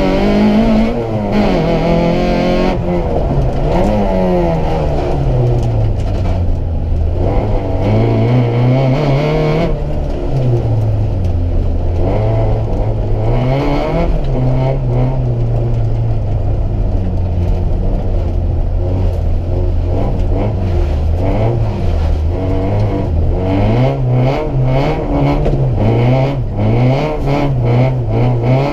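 Citroën Saxo VTS rally car's 1.6-litre four-cylinder engine heard from inside the cabin, revving hard: its pitch climbs under acceleration and drops again with each gear change or lift, over and over. Over the last few seconds a quick run of knocks and rattles from the car comes in over the engine.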